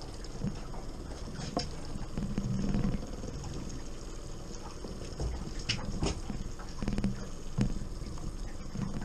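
Fishing boat trolling at low speed: a steady low hum of motor and water against the hull, with a few brief swells and scattered sharp clicks and knocks as the angler handles a rod and gear.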